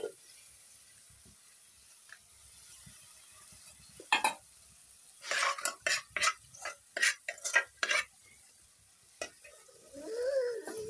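Metal bowl being scraped out by hand: one knock, then a quick run of about eight sharp metal scrapes. A short wavering cry comes near the end.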